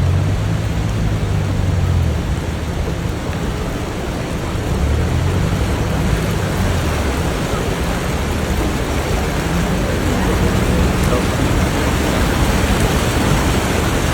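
Steady hiss of heavy rain, with a low hum coming and going underneath.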